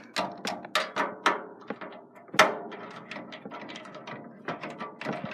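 Screwdriver driving the first screw through a motherboard into the case: a run of irregular small metallic clicks and scrapes, the sharpest about two and a half seconds in.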